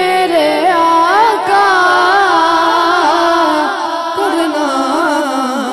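A boy singing a naat (Urdu devotional song) into a microphone, drawing out long ornamented notes that bend up and down in pitch.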